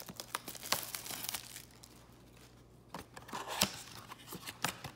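Plastic shrink wrap crinkling and tearing as it is pulled off a cardboard trading-card blaster box, in quick irregular crackles, with a quieter spell about two seconds in.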